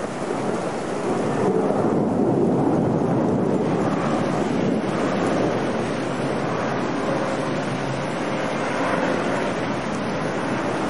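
Gusty storm wind blowing through trees, rumbling on the phone's microphone, with a gust swelling about two seconds in.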